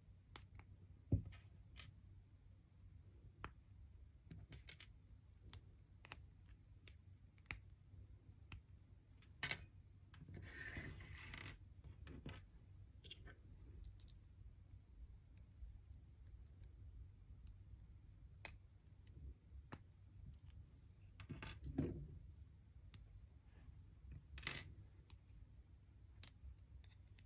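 Small LEGO plastic pieces being pulled apart and handled: scattered sharp plastic clicks, with a brief rattle of handling about ten seconds in.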